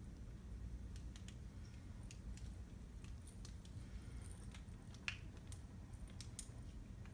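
Faint scattered clicks and light handling noises from hair styling with a curling wand, over a low steady hum, with one sharper click about five seconds in.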